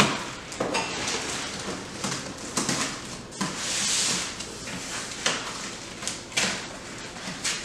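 Long cardboard shipping box being opened and handled on a wooden floor: the top flaps torn open, the box knocking and scraping as it is tipped up on its side, with a longer scraping rustle about four seconds in.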